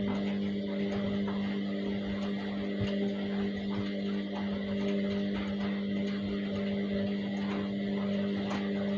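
Washing machine running with a steady motor hum and a few faint knocks.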